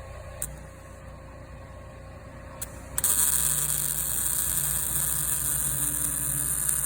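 A Harbor Freight Titanium 200 MIG welder hums quietly with a couple of faint clicks, then about three seconds in the arc strikes. A loud, steady sizzling crackle follows, with a low hum under it.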